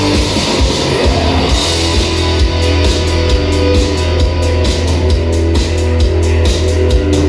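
Loud rock music with a heavy bass and a fast, driving drumbeat that comes in about two seconds in.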